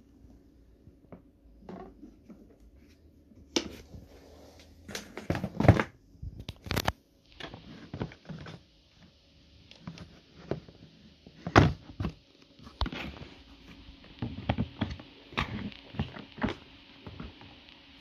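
Hard plastic knocks, clicks and clatter as the parts of a Taski Vento 8 tub vacuum cleaner are handled, with the motor not running. The knocks come irregularly, the loudest about six seconds in and again near twelve seconds.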